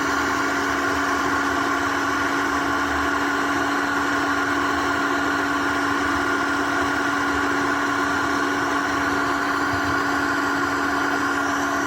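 Hot Rod handheld induction heater running with a steady hum made of several held tones, heating a rusted exhaust header bolt that is smoking but not yet cherry red.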